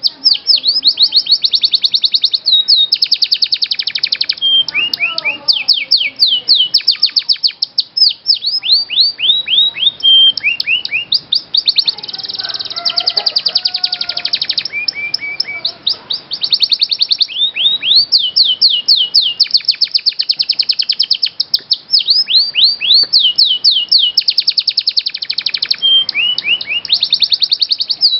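A domestic canary singing loud, continuous rolling trills. Each trill is a rapid run of repeated high sweeping notes, and the song switches from one trill to the next every second or two with a few short breaks.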